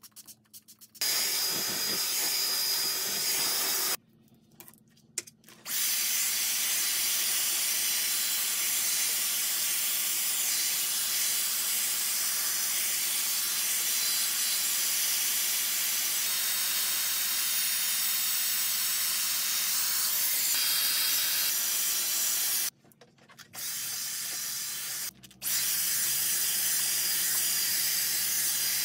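Dyson Airwrap styler with the round brush attachment blowing hot air through hair: a steady rushing hiss over a low motor hum. A few faint spritzes from a pump spray bottle come first; the airflow then cuts out briefly about four seconds in and twice near the end, running quieter between those two gaps.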